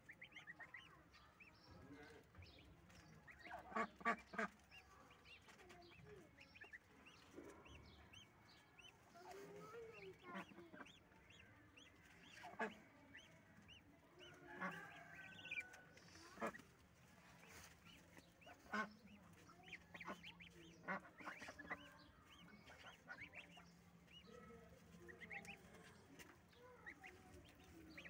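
Goslings peeping faintly and often while they feed, with a few short, sharper sounds standing out, the loudest about four seconds in.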